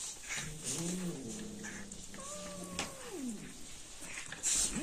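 A pet animal making long, wavering drawn-out calls, one of them sliding down in pitch about three seconds in, with a few short thumps of the animals play-wrestling on a bed.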